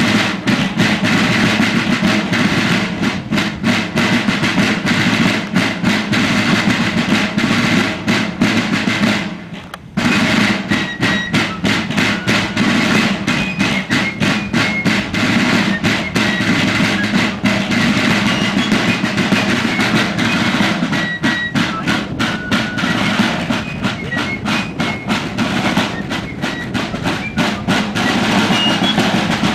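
Fife and drum corps playing a march: rope-tension field drums beating fast strokes and rolls under the faint, high melody of a wooden fife. The playing fades out just before ten seconds in, then starts again abruptly mid-tune.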